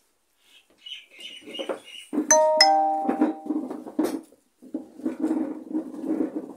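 A two-note electronic chime, like a doorbell ding-dong, sounds about two seconds in. Its two notes come about half a second apart and each rings on briefly.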